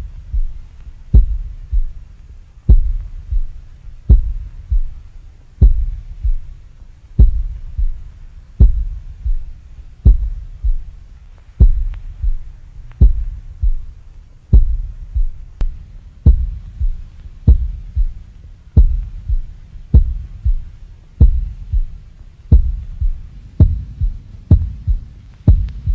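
Heartbeat sound effect: slow, even double thumps, a strong beat and a softer one, about every second and a half, quickening over the last few seconds.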